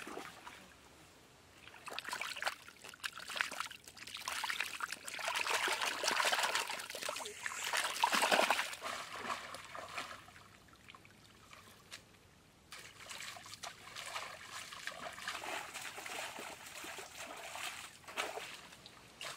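Muddy creek water splashing and sloshing as a woven bamboo basket is dipped in and lifted out, the water trickling back through its weave. The splashing comes in irregular spells, with a quieter gap of a couple of seconds about halfway through.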